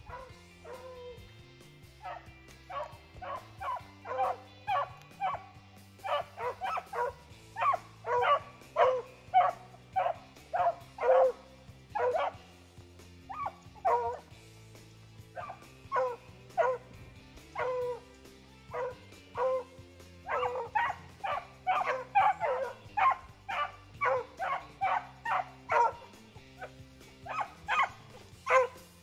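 Beagle hounds baying in a long, irregular string of calls, one or two a second, as they run a snowshoe hare's track. Low background music runs underneath.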